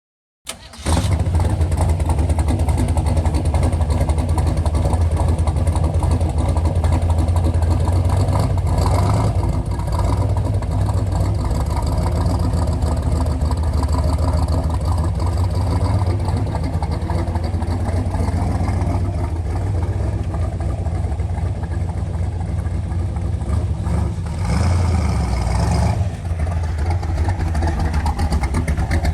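1966 Corvette V8 engine running, starting abruptly and carrying on steadily, with a couple of short shifts in engine speed, including one near the end.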